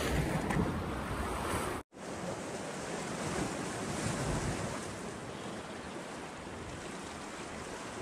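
Sea surf washing against a rocky shore, with wind blowing across the microphone, as a steady wash of noise. About two seconds in the sound drops out for an instant at an edit cut, then the surf carries on slightly quieter.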